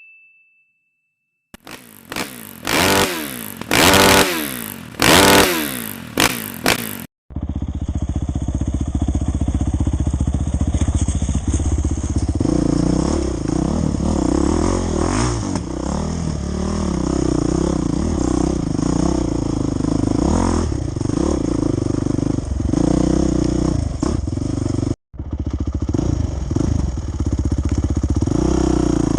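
A series of whooshing sweeps. Then, from about seven seconds in, a trail dirt bike's engine running with its revs rising and falling as it rides, broken by a brief gap near the end.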